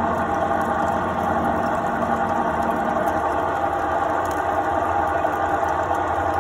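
Oster heavy-duty threading machine running steadily while its threading head cuts 8-threads-per-inch threads into a 1-inch steel shaft. It makes an even mechanical hum with several held tones.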